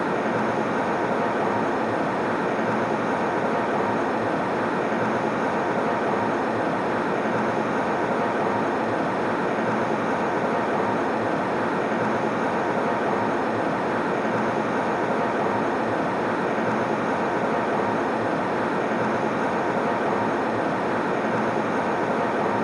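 Airplane cabin noise in flight: a steady, even noise that does not change.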